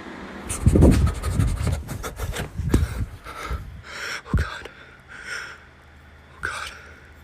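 An animal panting in short noisy puffs about a second apart, with a cluster of knocks and rubbing in the first three seconds.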